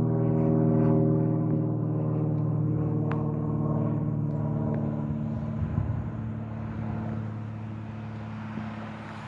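Cessna 182Q Skylane's six-cylinder piston engine and propeller droning steadily as the plane flies away, fading gradually.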